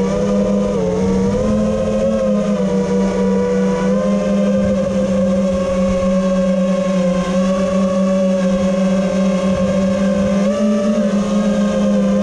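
Mini quadcopter's brushless motors and propellers whining in flight, mostly holding one pitch with small dips and rises as the throttle changes. The quad still has gyro noise after its flight controller was soft-mounted and a capacitor added, which gives the motors a twitchy roughness when throttling.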